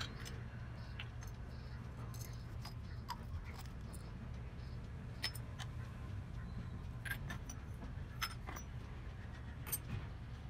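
Miniature brass pots clinking against each other and tapping down into a cardboard box: scattered light metallic clicks at irregular intervals over a steady low hum.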